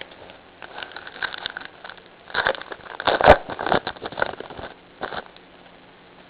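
Baseball trading cards being handled, making irregular bursts of rustling and crackling for about five seconds that stop near the end.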